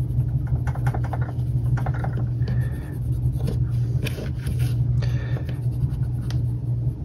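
Coloured pencil scratching in uneven strokes on a small sanded wooden model piece, with light handling of the piece; a steady low hum runs underneath.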